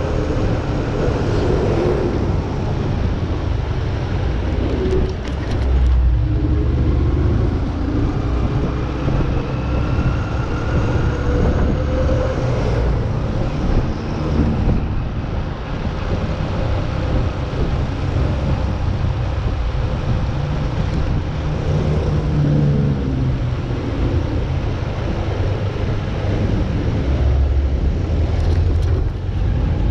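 Motor vehicle on the move: steady engine and road rumble, with wind buffeting the microphone.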